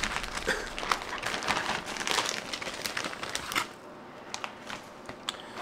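Clear plastic zip-top bag crinkling and rustling as it is handled, dense for about three and a half seconds, then a few faint clicks.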